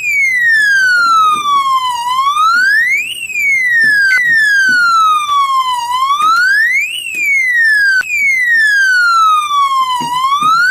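Electronic fire alarm hooter sounding in alarm, a loud wailing tone that slides down and back up, repeating about every four seconds.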